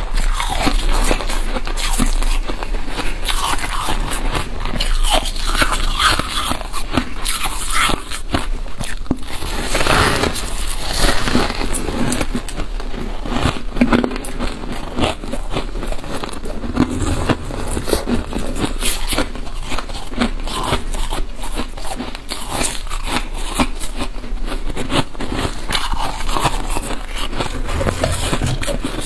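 Freezer frost being bitten and chewed close up: a dense, continuous run of crisp crunches and crackles.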